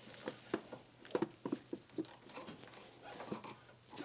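Irregular light clicks and taps of plastic cable mounts being slid and pressed onto a battery cable.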